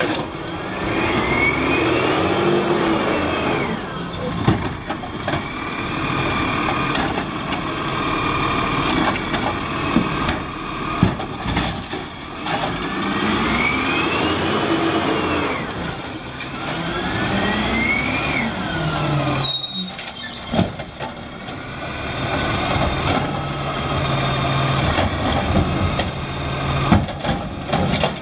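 Autocar ACX garbage truck with a Scorpion automated side-loader body working its hydraulic arm through cart pickups: engine revving up and down with a whine that rises and falls in pitch three times as carts are lifted and dumped. A short air-brake hiss comes about two-thirds of the way through, and then a steady low engine drone.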